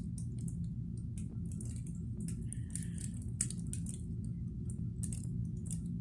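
Scattered faint crackles and ticks, irregularly spaced, over a steady low hum; the person recording hears them as something raining down from directly above.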